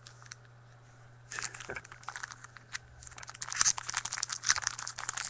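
Trading-card pack wrapper being torn open and crinkled, starting about a second in and growing denser toward the end, over a faint steady low hum.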